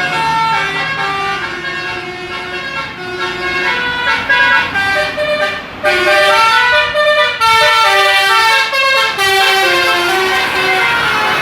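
Indonesian bus 'telolet' basuri musical horn playing a quick tune: a run of short horn notes stepping up and down in pitch, several tones sounding together, with a brief break about six seconds in.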